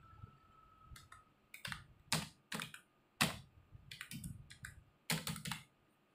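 Typing on a computer keyboard: irregular keystrokes, some in quick runs, with short pauses between them.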